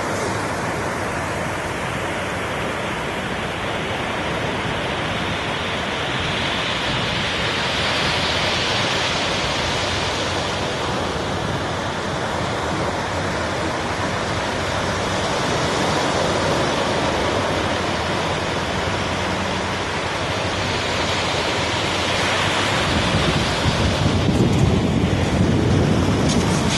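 Sea surf washing onto a sandy beach: a steady rush that swells and eases every several seconds. Wind buffets the microphone near the end.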